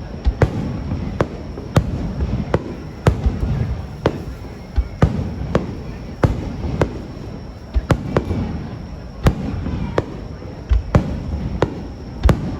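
Aerial fireworks shells bursting in quick succession: sharp bangs about one to two a second over a continuous low rumble.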